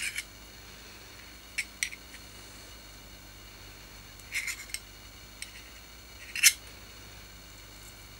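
Metal tweezers clicking and scraping against a petrol lighter's metal insert while working in its cotton wool packing: scattered short, sharp metallic clicks, the loudest about six and a half seconds in.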